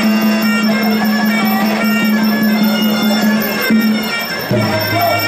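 Sarama, the traditional Muay Thai fight music: a reedy Thai oboe (pi chawa) wails a melody over a held low note, which drops by about an octave near the end.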